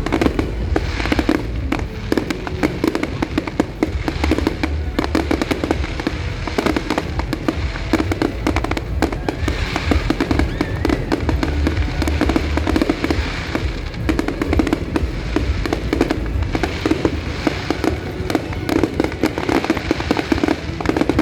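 A fireworks display going off nonstop, a dense run of bangs and crackles over a low rumble, with music playing underneath.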